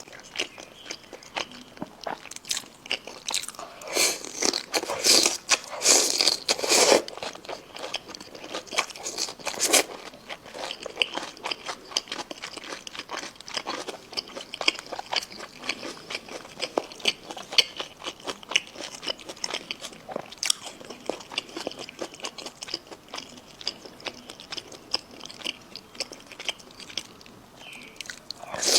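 A person biting and chewing food close to the microphone: a dense run of short crisp crunching clicks, loudest in a cluster about four to seven seconds in.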